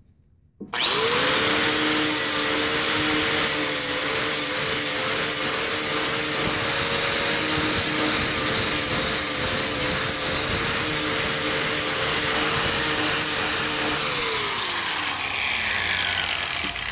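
Electric angle grinder with a wire wheel starts up about a second in and runs steadily, its wires scrubbing rust off the thin sheet steel of a trunk lid. Near the end it is switched off and its whine falls in pitch as it spins down.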